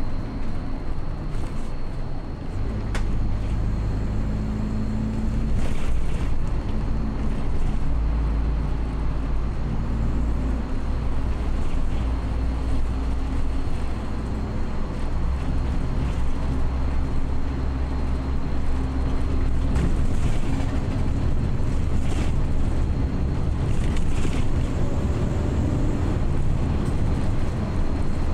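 Inside a moving bus: steady low engine and road rumble as it drives along, with a constant hiss of road and wind noise and a faint steady high whine.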